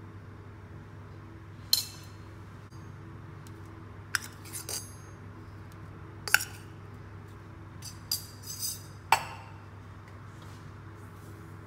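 A metal spoon clinking as spices are spooned onto chicken in a stainless steel bowl: about seven sharp, separate clinks, some ringing briefly, over a steady low hum.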